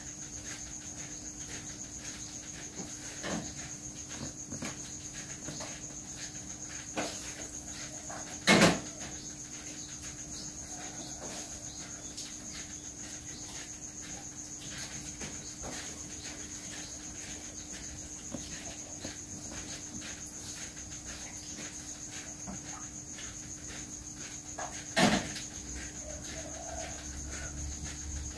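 A steady high-pitched tone over a low steady hum, with faint rustling clicks and two sharp knocks, the first about a third of the way in and the second near the end.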